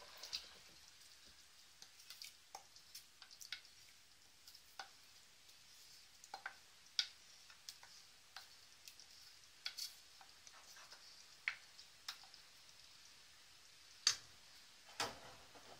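Faint, irregular drips and small ticks as thinned palm nut cream drains from a glass bowl into a pot of soup, with a wooden spoon scraping the bowl clean; two sharper knocks near the end.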